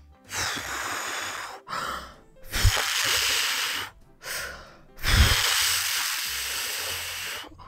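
A person blowing out hard three times in long breathy puffs to blow up an inflatable swim ring, with short pauses for breath in between.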